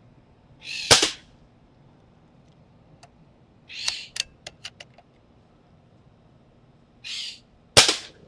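Two sharp shots from a Benjamin bolt-action air rifle, about seven seconds apart, with a quick run of bolt clicks between them as the rifle is cycled. A bird calls three times in between.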